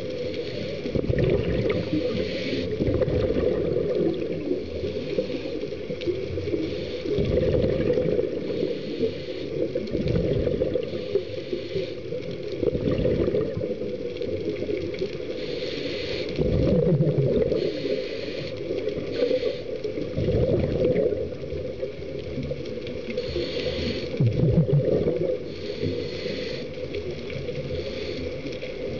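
Scuba diver's regulator breathing underwater: surges of exhaled bubbles rumbling every few seconds, with a higher hiss coming and going between them.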